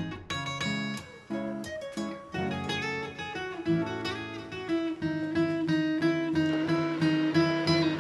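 Background music played on acoustic guitar, a run of plucked notes and strums.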